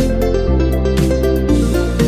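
Background music with a steady beat: electronic music with a bass line that changes every half second and sustained chords.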